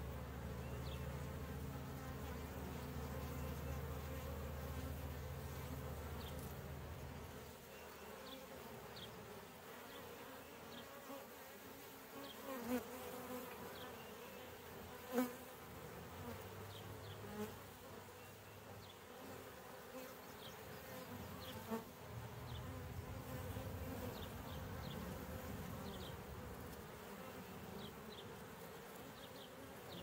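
Honeybees buzzing at a hive entrance: a low hum that is strong at first, fades about eight seconds in and swells again as bees fly close past. Faint short bird chirps sound in the background, and a few sharp ticks fall in the middle, the loudest about fifteen seconds in.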